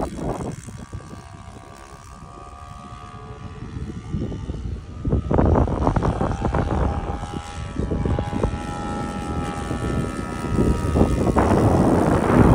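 Four-stroke nitro engine of a radio-controlled Corsair warbird model running in flight, a steady propeller drone whose pitch shifts as the plane manoeuvres. It grows louder about five seconds in and again near the end as the plane comes closer.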